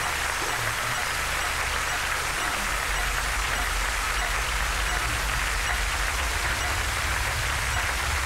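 Steady applause from a studio audience, over a low, steady rumble.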